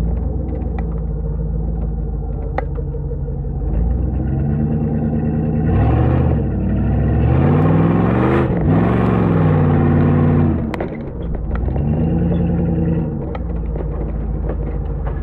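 1997 Jeep Grand Cherokee's 5.2-litre V8 through a Magnaflow Turbo XL muffler, running at a low steady rumble and revved up and back down a few times. The longest and highest rev comes in the middle.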